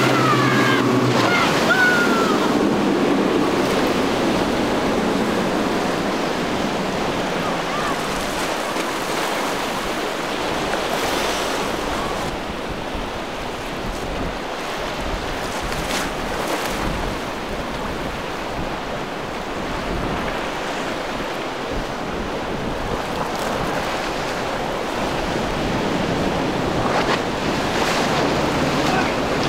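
Waves and boat wake washing and breaking, with wind buffeting the microphone; the twin Yamaha outboards of boats running through the inlet are heard under the water noise, most clearly near the start and again near the end.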